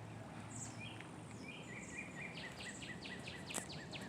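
Wild birds calling: scattered high chirps, then from about halfway in a rapid, even series of short, falling chirps, about four or five a second.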